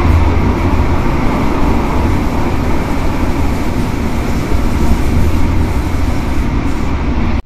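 Tram-train running along main-line railway track, heard from on board: a steady rumble of wheels on rail with running noise from the car. The sound cuts off suddenly at the end.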